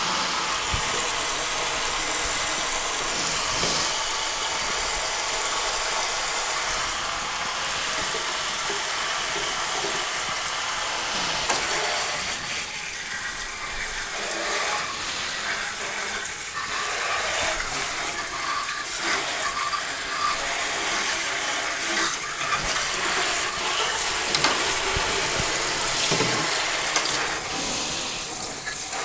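Kitchen faucet spray hissing and splashing onto a freshly bored twin-cylinder two-stroke cylinder block in a stainless steel sink, with a brush scrubbing in the bores and a few knocks of the block against the sink. The spray gets more uneven after about twelve seconds, as the sprayer nozzle is held right into the bores.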